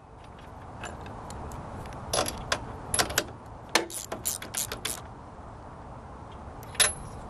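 A ratchet wrench clicking in short irregular runs as a 13/16 spark plug socket on an extension tightens a new Champion J19LM spark plug into a Briggs and Stratton 6.5 hp lawn mower engine. One last click comes near the end.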